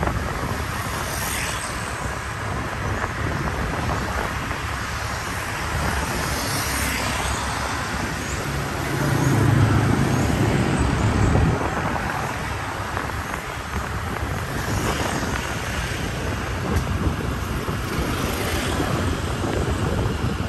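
Steady road and wind noise of riding along a town road in light traffic, with a pickup truck passing close and loud from about nine to eleven seconds in.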